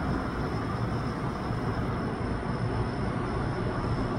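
Steady low rumble of outdoor background noise with a faint constant high whine, unchanging throughout, with no distinct events.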